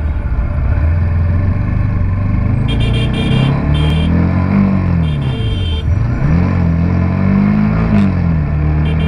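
Motorcycle engine revving up and down, its pitch rising and falling repeatedly, over a steady low drone of heavy traffic. Several short high beeps come and go from about three seconds in.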